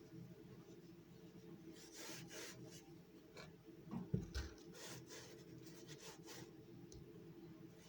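A run of short scraping or rubbing strokes, with one low thump about four seconds in.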